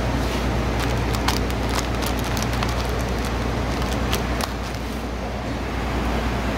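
Granule pouch packing machine running with a steady low hum, with irregular sharp clicks and ticks over the first four seconds or so.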